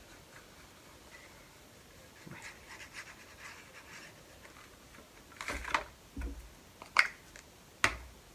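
Card and paper pieces being handled on a cutting mat: soft rustling, then a few sharp taps and knocks over the last three seconds as pieces are set down and a glue stick is picked up.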